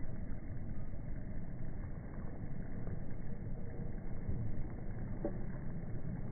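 Steady, muffled low rumble of outdoor background noise, slowed down along with the slow-motion pond footage, with no clear event in it.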